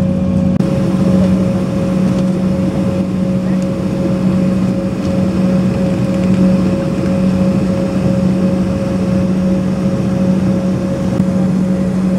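Steady drone of a jet airliner's engines at idle heard inside the cabin while taxiing and holding for takeoff, with a constant low hum and a fainter higher hum over it.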